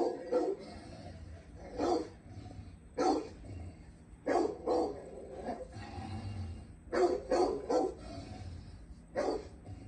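A dog barking repeatedly, short barks every second or two, some in quick pairs and threes, as it confronts a large snake.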